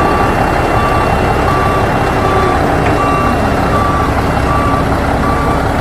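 Heavy truck's diesel engine running steadily while its reversing alarm beeps a single tone about once every three-quarters of a second.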